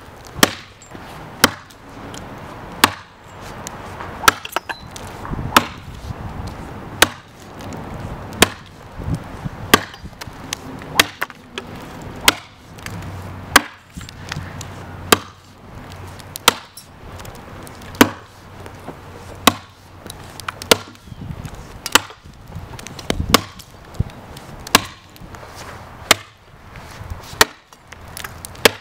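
A two-handed machete of pattern-welded high-carbon steel chopping into a standing tree trunk during a chop test of the blade. It lands a sharp thwack into the wood at a steady rhythm, about one every second and a half, some twenty strokes in a row.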